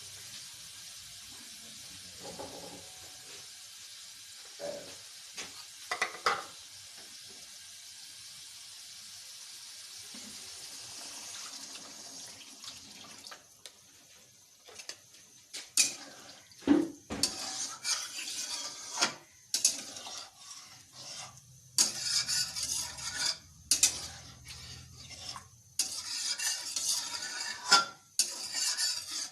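Fried masala paste sizzling in the pan as water goes in, a steady hiss with a few knocks. About halfway through, a spoon starts scraping and clattering against the pan over and over as the curry is stirred.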